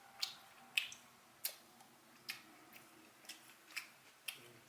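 Close-up chewing of food: sharp, wet mouth clicks and smacks, about one or two a second, irregular.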